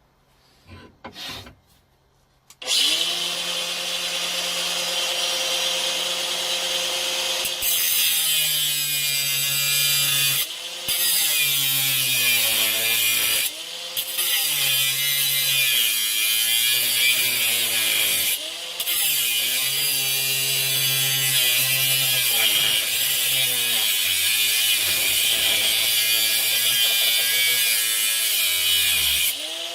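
Makita DGA452Z 18V cordless angle grinder starting up about two and a half seconds in, running free for a few seconds, then cutting into a hardened 12 mm steel security chain link with an abrasive cut-off disc. Once the disc bites, the motor's pitch repeatedly sags and recovers under load, with a few brief breaks in the cut.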